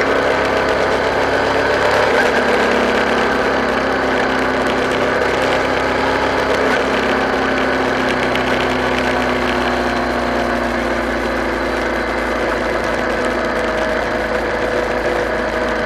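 A vehicle engine running steadily at cruising speed, holding a fairly even pitch under continuous road and wind noise.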